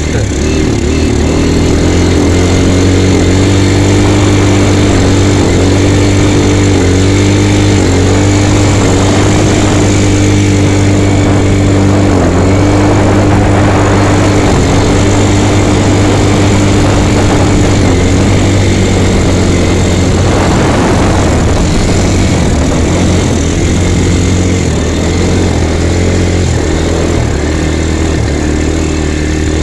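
ATV engine running while the quad is ridden, a steady drone whose pitch dips briefly every second or two in the first half, then holds steadier.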